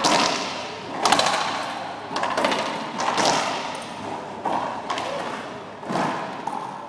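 Racquetball rally: the ball cracking off racquets and the court walls, about six sharp hits roughly a second apart, each echoing in the enclosed court.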